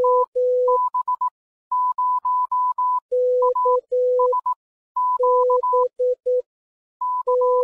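Morse code sent as clean beeps, short and long, the groups of characters alternating between a higher and a lower pitch about an octave apart.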